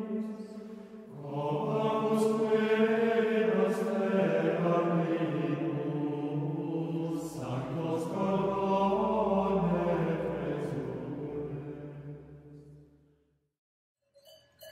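Monastic plainchant sung by men's voices in slow phrases of held notes, with short breaths between phrases. The chant fades out about thirteen seconds in.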